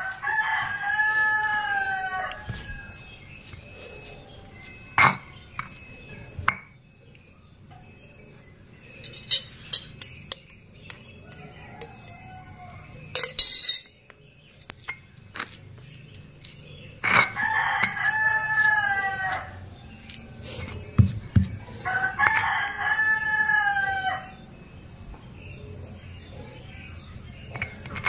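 A rooster crows three times, each crow about two seconds long: once near the start and twice more about two-thirds of the way through. Between the crows, a stone pestle knocks and scrapes in a stone mortar as it grinds a soft paste.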